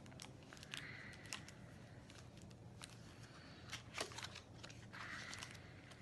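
Faint rustling and small clicks of a cardboard perfume box being handled and opened by hand, with one sharper click about four seconds in.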